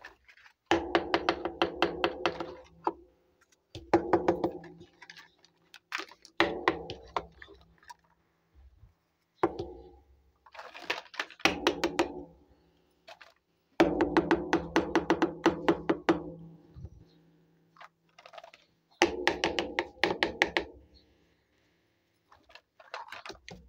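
Small plastic toy kitchen pieces clattering and knocking together as they are handled and set down, in bursts of a second or two with short pauses between.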